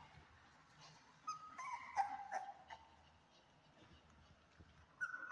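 Cane corso puppy, about three weeks old, whimpering: a high whine about a second and a half in that slides down in pitch, and another short whine near the end.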